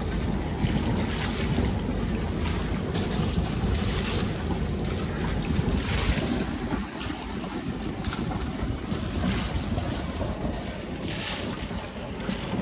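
Water rushing and foaming along the hull of a sailboat under way, with wind buffeting the microphone as a low rumble; louder washes of hissing spray come and go every few seconds.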